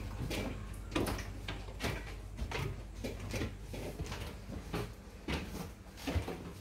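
Footsteps going up a narrow indoor staircase: a run of uneven thumps, about two a second, with a steady low hum underneath.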